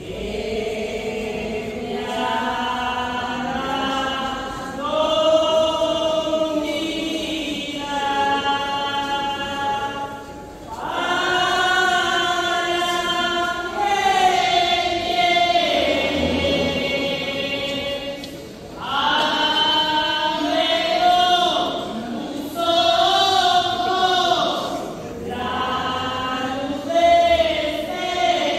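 A group of voices singing a slow devotional hymn together in long, drawn-out phrases, with short pauses between the lines.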